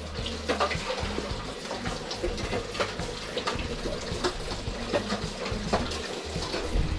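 A kitchen knife cutting shallots and chillies on a wooden cutting board: scattered, irregular short knocks over a steady hiss.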